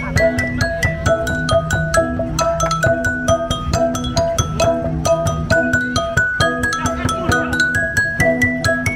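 Đàn đá stone lithophone played in a fast melody of short struck, ringing notes, several a second, over a repeating lower part.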